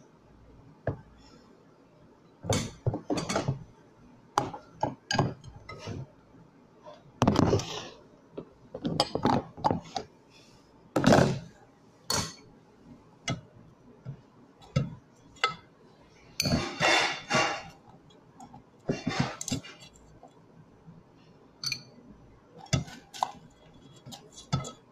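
Irregular clinks and knocks of a spoon against a glass food container, a plate and a metal cooking pot as rice and food are packed into the container, with a couple of longer scraping sounds.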